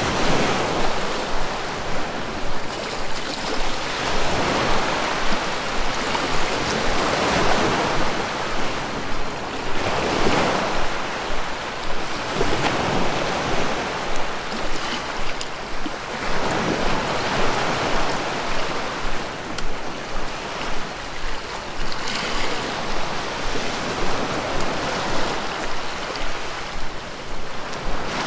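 Ocean surf rolling onto a beach: a continuous rush of breaking and washing waves that swells and ebbs every few seconds.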